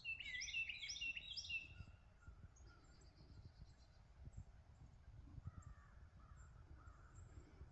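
Songbirds singing at dawn: one bird gives a quick series of loud down-slurred notes in the first two seconds, followed by a faint high trill and quieter calls, over a low outdoor rumble.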